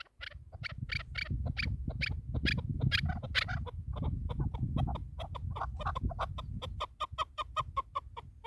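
Chukar partridge calling: a run of clucking notes that speeds up into an even chatter of about five notes a second in the second half.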